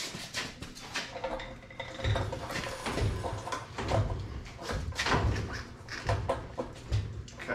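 Low thumps about once a second, with creaks, knocks and metal rattles, as a man bounces his weight on an off-road race car's chassis and suspension to shake the engine loose while it hangs from an engine hoist.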